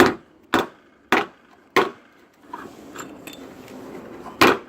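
Sharp taps on a car's metal fender as its dented body line, the 'eyebrow', is tapped back out: four taps about half a second apart, a pause of over two seconds, then one more tap near the end.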